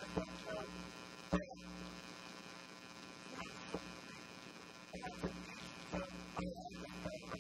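Steady electrical mains hum, buzzing with many overtones, broken by a few faint clicks and knocks.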